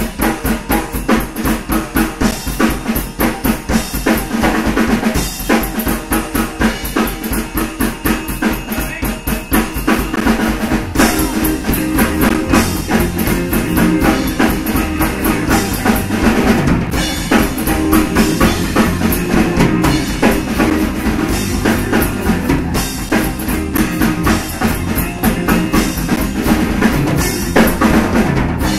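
Live rock band playing: a drum kit with bass drum and snare driving a fast, steady beat under electric bass and electric guitar, with no singing.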